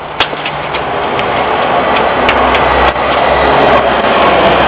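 A motor vehicle running close by, a steady noisy rumble that grows slightly louder, with a few sharp clicks.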